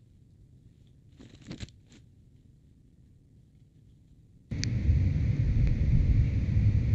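Near silence with a faint brief rustle about a second and a half in, then from about four and a half seconds in a sudden steady low rumbling noise that carries on: a motorcycle going past the house.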